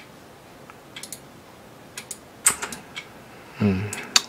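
Scattered computer keyboard and mouse clicks, a few at a time, with a short murmured voice sound about three and a half seconds in.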